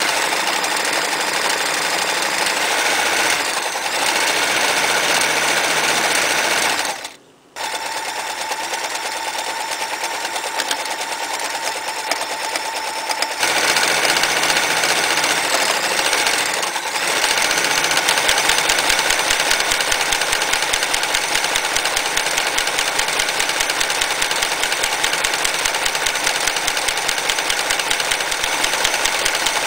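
Frister & Rossmann 503 electric sewing machine running fast and steadily, stitching test rows along a strip of fabric. It stops briefly about seven seconds in, then starts again and runs a little louder from about halfway.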